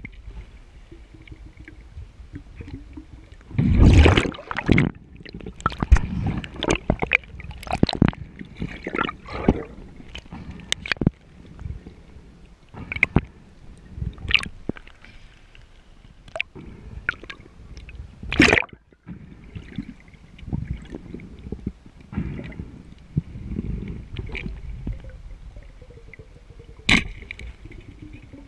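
Underwater sound picked up by a diver's submerged camera: muffled sloshing and gurgling water with irregular knocks and clicks from movement, and a few louder rushes, the biggest about four seconds in.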